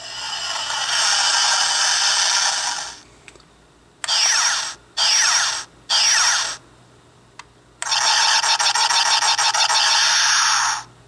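Electronic sound effects from the Revell Star Wars Millennium Falcon model kit, played through its small built-in speaker. A swelling, hissy spaceship rumble lasts about three seconds, then three short blasts each fall in pitch, then a rapid stuttering burst runs about three seconds near the end.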